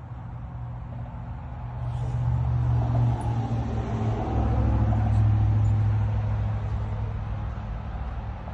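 A motor vehicle passing: a low engine rumble that swells about two seconds in, is loudest around the middle, and fades near the end.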